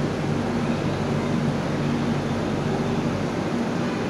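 WCAM-3 electric locomotive standing with its pantograph up, running with a steady whine over a low hum and an even hiss.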